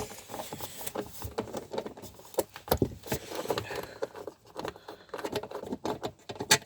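Irregular metallic clicks, clinks and rattles of hand tools and fasteners as the last fixings are undone on a Porsche Boxster 986 engine cover. A few sharper knocks stand out, one just under three seconds in and one near the end.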